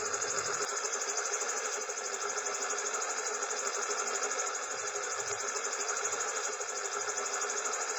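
Propellers spinning: a steady, fast whirring buzz that holds an even pitch and level.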